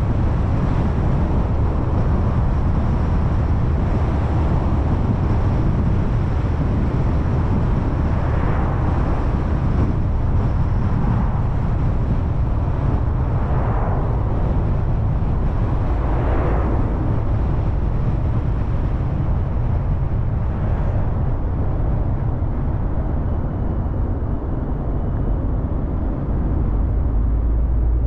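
Car driving at road speed: a steady low rumble of tyre, engine and wind noise, with a few short swells in the rush around the middle.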